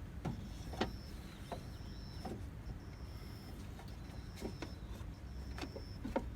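Scattered light clicks and knocks from the drive belt and a wrench being worked around the lowest pulley in a Mazda Demio's engine bay, over a low steady background hum.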